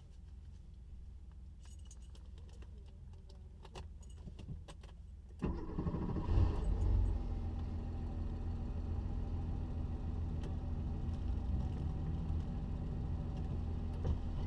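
Keys clicking in the ignition, then a classic air-cooled Porsche 911 flat-six starting about five seconds in, with a brief swell in revs as it catches, then idling steadily, heard from inside the cabin.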